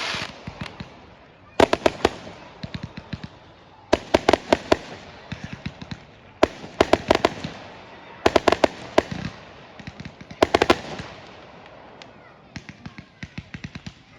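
Fireworks going off: clusters of sharp bangs and crackles about every two seconds, with smaller, lighter crackling near the end.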